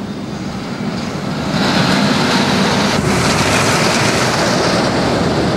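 Steel roller coaster train (Expedition GeForce) running along its track with a rumbling rush of noise, which grows louder about a second and a half in.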